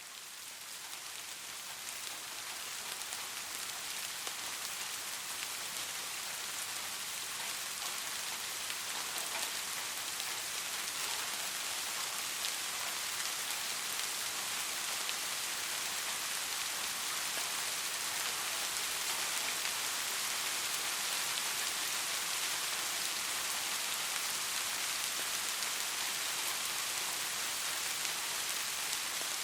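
Steady rain falling, an even hiss with scattered drop ticks, fading in over the first few seconds and then holding steady.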